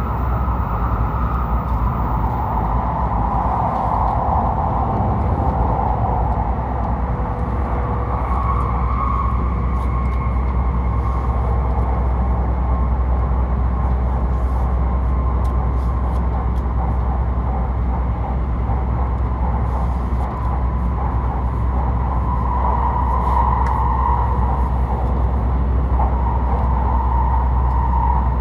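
Steady running noise of an E7/W7-series Hokuriku Shinkansen train at speed, heard inside the passenger cabin: a constant low rumble under an even rushing hiss.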